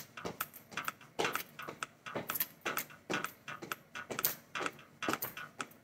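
Sneakered feet landing on a tiled floor during jumping jacks: short thuds and scuffs, about two or three a second.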